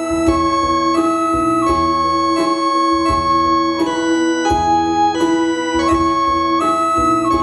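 Indian classical dance music: an organ-like keyboard melody of held notes stepping up and down over a steady drone, with a regular low drum beat.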